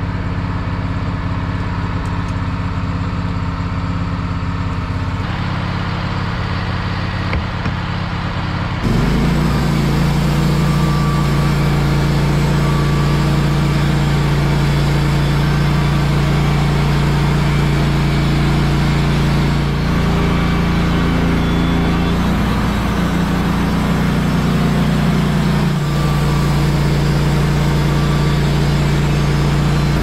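Wood-Mizer LT15 band sawmill running steadily. About nine seconds in it grows louder, with more hiss, as the blade is pushed through a fresh-cut pine log.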